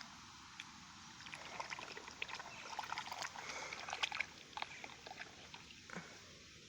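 Goose in a shallow puddle making faint, quick little splashes and drips with its bill, thickest in the middle and thinning out near the end.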